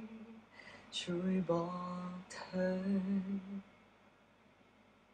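A man's voice singing softly without accompaniment, on three long held notes with short breaths between them. It falls quiet about three and a half seconds in.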